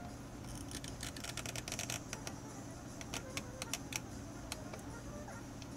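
Small clicks and taps of fingers working a tight tension band onto a plastic corner roller of an opened QIC tape cartridge. A quick run of clicks comes in the first two seconds, then scattered single ticks.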